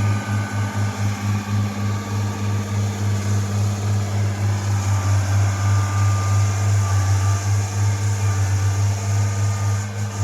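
A heavy engine running steadily with a low hum that throbs a few times a second at first, then evens out.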